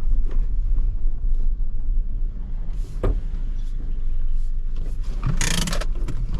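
Low, steady rumble of a car heard from inside the cabin as it creeps in or idles on arrival. There is a single sharp click about three seconds in and a short, harsh rasping noise a little after five seconds.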